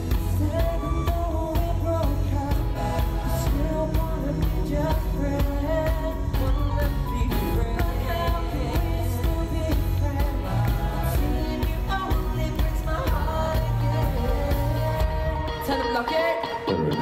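Live pop performance: a male vocal harmony group singing over a band with drums and bass. The bass and drums drop out near the end.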